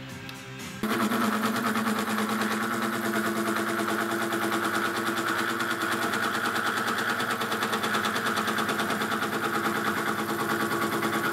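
Wabeco F1200 milling machine running a disc-type side milling cutter, cutting a slot into a metal workpiece in the upcut (conventional) direction. It is a steady machine whine with a fast pulsing that starts abruptly about a second in and stops abruptly near the end.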